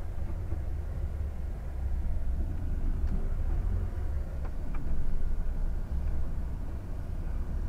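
Heard from inside the cab, the straight-six diesel engine of a DAF XF 460 truck runs at low speed with a steady low rumble as the tractor and semitrailer make a tight turn.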